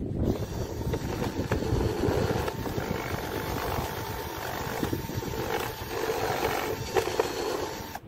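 Cordless drill running under load as its bit cuts into a wooden toy-rifle stock: a steady motor whine over a rasping cut. It stops right at the end.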